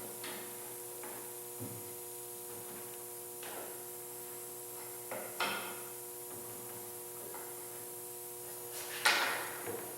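A few scattered knocks and clunks of tools and a wooden jig being handled and set down on a workbench, over a steady electrical hum.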